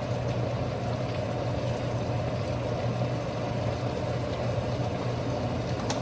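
Steady low mechanical hum of a kitchen range-hood fan running over the stove, with a fainter even hiss above it.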